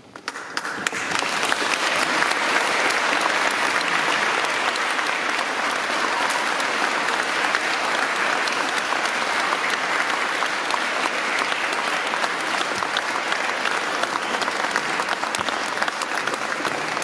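Audience applauding at the end of a choir's song: dense clapping that swells in within the first second and then holds steady.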